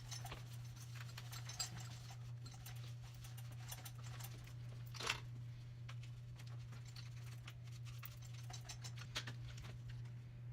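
Scattered light clicks and taps of bicycle parts and tools being handled during a tune-up, the sharpest about 1.5 and 5 seconds in, over a steady low hum.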